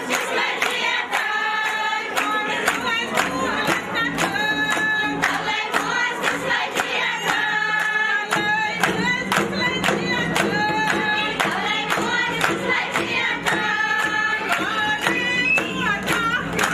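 A group of voices, mostly women, singing a Kashmiri mehendi raat song together, with steady hand-clapping keeping the beat at about two claps a second.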